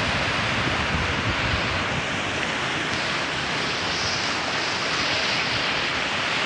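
Sea waves breaking and washing over shoreline rocks, a steady rushing hiss of surf, with a low uneven rumble of wind on the microphone.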